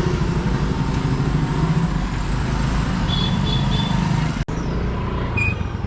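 Street traffic: vehicle engines rumbling steadily, with a horn giving three short high beeps about three seconds in. The sound breaks off abruptly near the end and changes.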